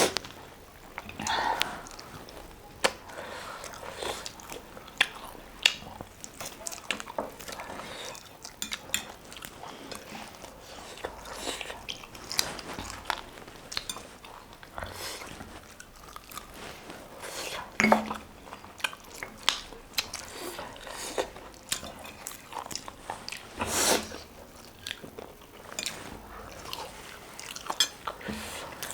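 Close-up eating sounds: irregular biting, chewing and crunching of food, with a few sharper snaps now and then.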